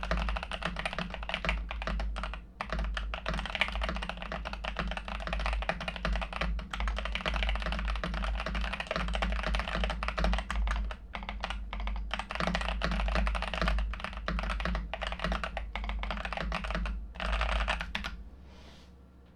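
Mechanical keyboard typed on quickly and continuously: a Wuque Studio Ikki68 R1 with lubed BobaU4T tactile switches on an aluminum plate, with PBT keycaps. Dense, crisp key clacks with a few short pauses, stopping shortly before the end.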